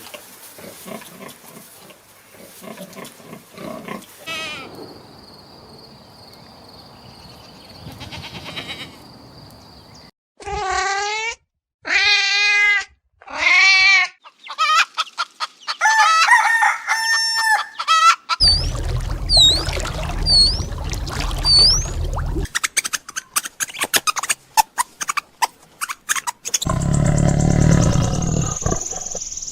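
A string of different animal calls. Among them, a rooster crows three times in quick succession a little before the middle, and high, repeated chirps follow a few seconds later.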